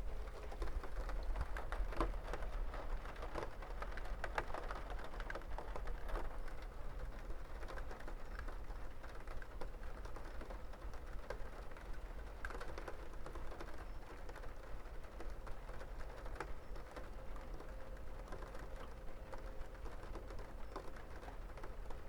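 Rain falling, with many separate drops ticking irregularly on a hard surface over a soft steady patter, and a faint low hum underneath.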